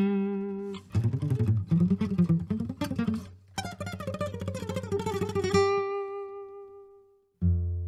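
Background music: a plucked guitar tune with strummed chords, fading out near the end before a new chord strikes in.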